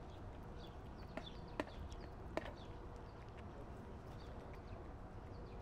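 Orange kitten eating wet cat food chunks: faint, scattered wet chewing and licking clicks, with a few sharper clicks about a second and a half and two and a half seconds in.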